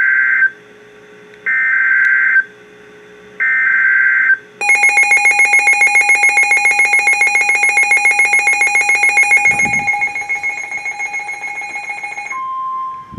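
NOAA Weather Radio emergency alert tones: three buzzy SAME header data bursts, each under a second. They are followed by a rapid pulsing electronic alert beep from the receiver, about seven pulses a second, which drops in level about five seconds after it starts. Near the end a steady single-pitch weather radio warning alarm tone begins.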